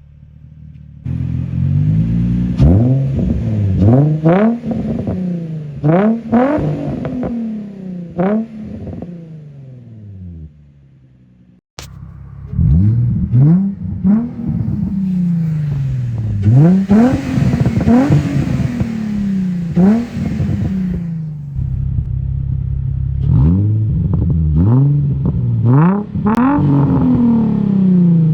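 Nissan VQ35DE 3.5-litre V6 through a Z1 Motorsport single-exit straight-cut race exhaust with the silencer removed, revved again and again in quick blips. The pitch rises and falls back each time, with a short quieter stretch and a sudden break a little before halfway.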